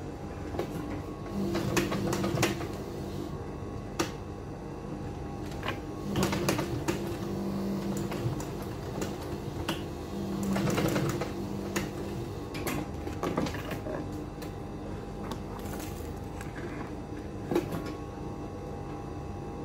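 Protex industrial sewing machine stitching thick leather in several short runs: the motor hums and the needle bar clatters, then stops and starts again.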